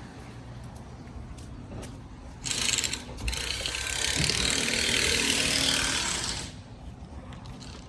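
Ratchet wrench clicking rapidly for about four seconds, with a brief break near the start, as it runs a lug nut on or off a truck wheel.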